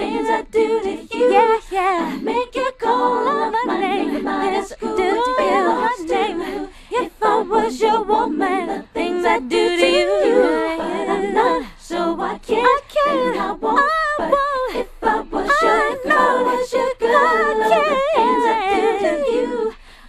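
Isolated studio vocals with no instruments: a woman's voice layered in several parts, background harmonies stacked under a lead that slides through wavering runs.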